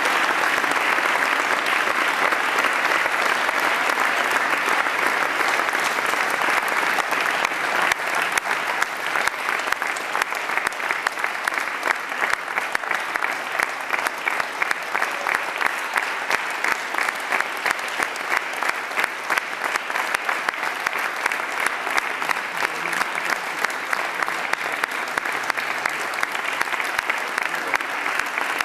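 Audience applauding at the end of a dance performance. About eight seconds in, the clapping falls into a steady unison beat of about two claps a second.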